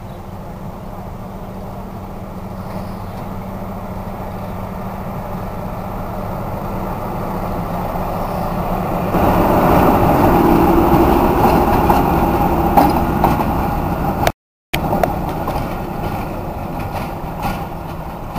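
SP42 diesel locomotive's engine running as the locomotive moves past, getting steadily louder to a peak about nine seconds in as it passes close, then easing off as it moves away.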